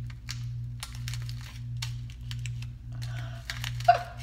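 A small seasoning sachet being handled and torn open: a string of light crinkles and crackles, with one sharper crack near the end, over steady background music.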